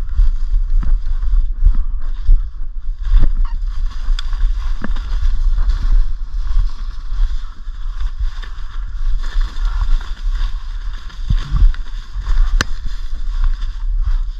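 Footsteps crunching and rustling through dry fallen leaves, with irregular snaps and knocks. Wind buffets the microphone throughout as a steady low rumble.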